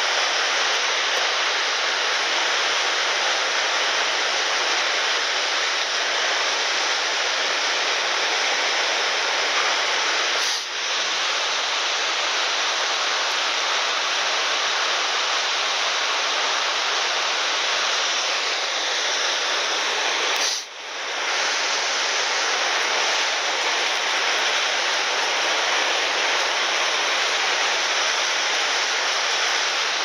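Steady rushing roar of the Gullfoss waterfall, even and unbroken apart from two brief dips.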